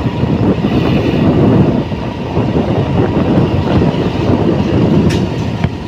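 Steady rumble of a moving vehicle with wind buffeting the microphone, and one short sharp click about five seconds in.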